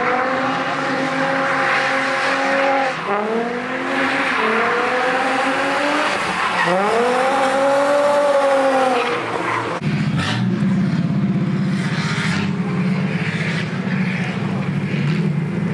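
Drift car's engine revving hard with its pitch held high, dipping and climbing back again, over tyres skidding and squealing. About ten seconds in it drops to a lower, steady engine note as the tyre noise fades.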